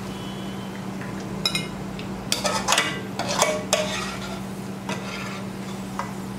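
Sliced onions frying in hot oil sizzle while a steel mesh skimmer scrapes and clinks against the metal pot, lifting the browned onions out; the clinks come in a cluster from about a second and a half to four seconds in.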